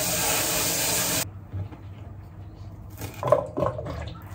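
Kitchen tap running onto seri (Japanese parsley) rinsed under it in a stainless steel sink, shut off about a second in. Then a few light knocks of a knife cutting on a plastic cutting board.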